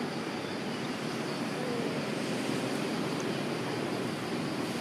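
Steady outdoor background noise: an even, constant rush with no distinct events.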